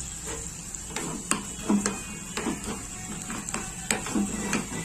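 Spoon stirring and scraping a thick frying mixture of grated ginger, ghee and jaggery in a pan, knocking against the pan irregularly about once or twice a second.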